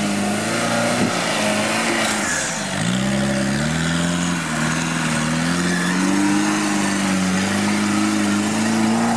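First-generation Fiat Panda 4x4's engine running under load on a rough dirt climb, the revs rising and falling. About two and a half seconds in the engine note drops sharply, then climbs back up and holds at higher revs.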